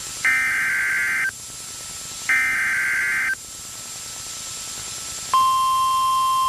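EAS alert on NOAA Weather Radio: the last two of three one-second SAME digital header bursts, a buzzy data screech, a second apart. About five seconds in, a single steady 1050 Hz warning alarm tone begins, announcing a new warning.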